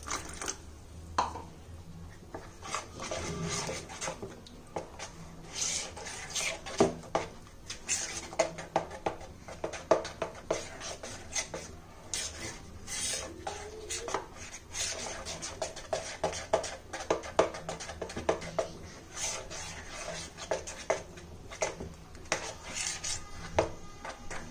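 A utensil stirring a thick flour batter in a bowl, clinking and scraping against the bowl many times in an irregular rhythm.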